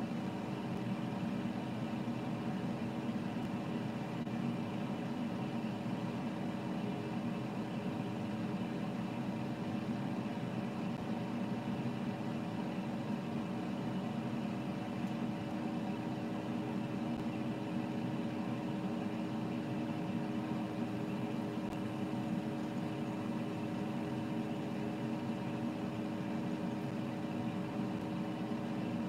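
Basket air fryer running at 390 °F: a steady whir from its fan with a constant hum from the motor.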